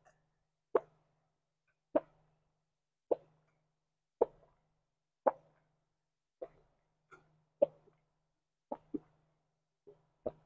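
A person gulping down a glass of beer: about ten swallows, one roughly every second, regular at first and coming less evenly near the end.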